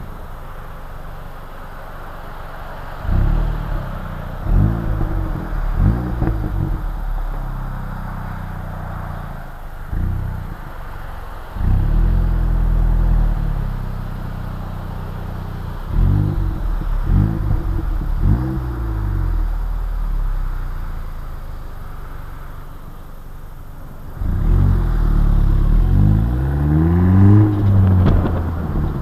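Opel Astra J GTC 1.4 Turbo's four-cylinder engine heard at the tail through its aftermarket EDS 76 mm downpipe, 200-cell cat and Friedrich 70 mm sport exhaust while driving: several short bursts of throttle with the revs rising and dropping, over road and wind noise. Near the end comes a longer, louder acceleration with the revs climbing again and again.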